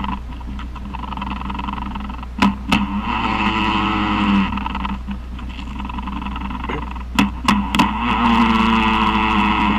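Male jumping spider's courtship vibrations, picked up from the ground by a special sensor and played back as sound: long buzzy drones that slide down in pitch, broken by sharp taps, two about two and a half seconds in and three in quick succession around seven to eight seconds in. They are the signals the male makes by striking the ground to court the female.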